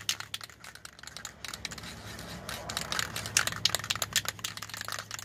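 Aerosol spray-paint can being worked to lay down a coat of paint: a run of irregular sharp clicks and rattles, with a short hiss of spray about three seconds in.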